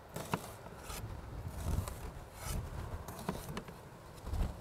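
Kitchen knife cutting vegetables on a cutting-board plate: a series of uneven short chopping and scraping strokes.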